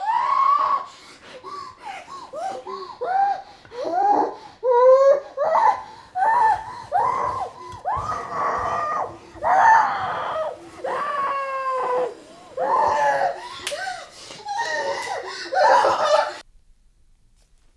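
A woman crying hard, in uneven sobbing and wailing bursts whose pitch slides and breaks. The crying cuts off suddenly near the end.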